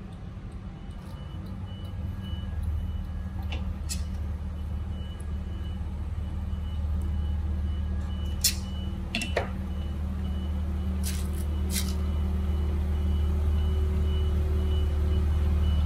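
A steady low engine-like hum that grows gradually louder, with a faint thin high tone above it. Over it come a few sharp clicks, among them the clack of hand snap-button pliers pressing a plastic snap onto fabric about halfway through.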